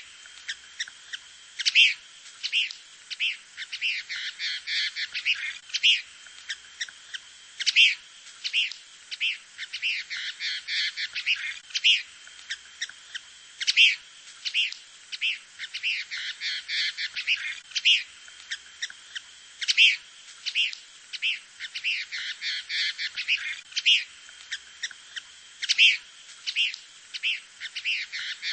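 Birds chirping: many quick, high calls in a busy overlapping chorus with sharper, louder chirps standing out. The same few-second stretch repeats about every six seconds, a looped recording.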